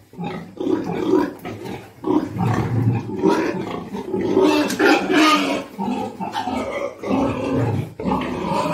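Pigs grunting during mating, a breeding boar mounted on a sow, in repeated deep grunts about one to two a second.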